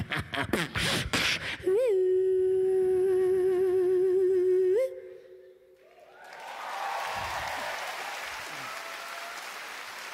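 Beatboxer's vocal percussion: a quick run of mouth-made beats, then one long note held with vibrato for about three seconds that flicks upward and cuts off. About six seconds in, audience applause swells and carries on.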